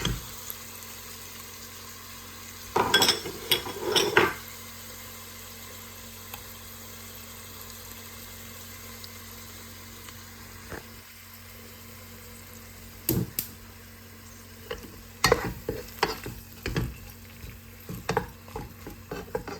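Fenugreek, fresh herbs and smen (clarified butter) frying in hot oil with onion and garlic in a pan, a steady sizzle. A utensil stirs and scrapes through the pan in a short flurry about three to four seconds in, then knocks and scrapes against the pan repeatedly in the last six seconds.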